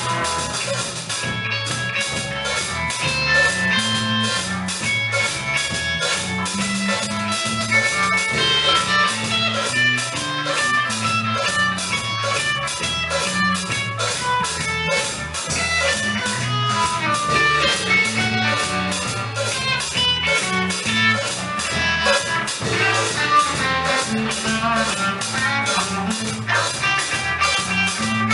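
Live band playing a song at a sound check: guitar over a moving bass line and a drum kit.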